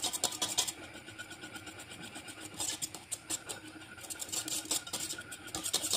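Wire whisk scraping and rattling against a stainless steel saucepan in quick repeated strokes, stirring thickening pastry cream. The strokes come in stretches, loudest near the start, around the middle and over the last two seconds.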